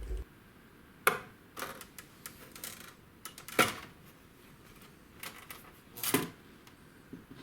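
Scattered sharp clicks and light knocks of hard parts being handled during a computer teardown, about five of them, the loudest about three and a half seconds in.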